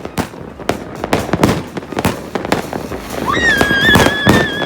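Fireworks going off: a rapid, irregular run of sharp bangs and crackles. Near the end a high whistle rises and then holds steady for about a second and a half over the bangs.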